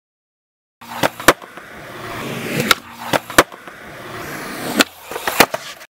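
Skateboard wheels rolling on concrete, broken by a series of sharp clacks of the board: tail pops and the deck slapping down on landings. The clacks are loudest about a second in and near the end. The sound starts abruptly after a brief silence.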